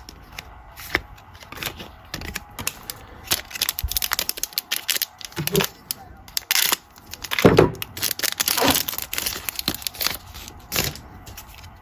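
Plastic foil wrapper of a trading-card pack being torn open and crinkled, with cards being handled, in a run of rustles and crackles that is busiest a little past the middle.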